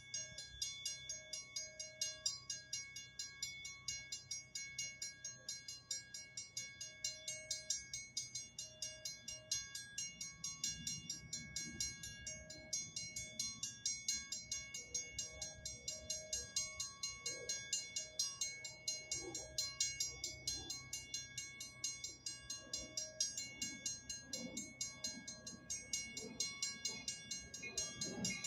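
Railroad crossing bell ringing with rapid, even strikes, about four or five a second, while the crossing gates are down. From about ten seconds in, a low rumble builds under it as the train approaches.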